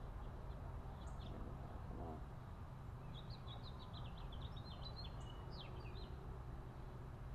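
A songbird chirping in the background: a quick run of short, high notes from about three seconds in to about six seconds, over a steady low rumble of ambient noise.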